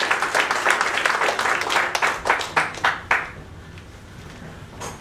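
Audience applause, many people clapping, that dies away about three seconds in, followed by a single short knock near the end.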